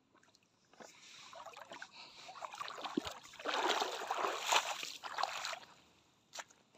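Seawater splashing and sloshing, building for a few seconds to a loud peak and then dying away.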